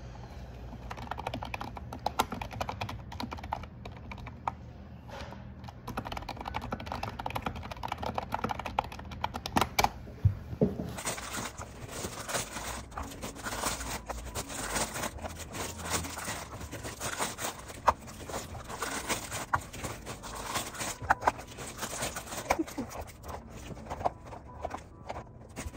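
A long run of quick, irregular clicks and taps, with the background noise changing about eleven seconds in.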